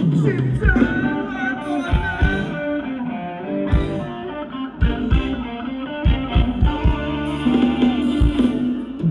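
Live band playing Thai ramwong dance music over a large PA: a melody line over a steady drum beat.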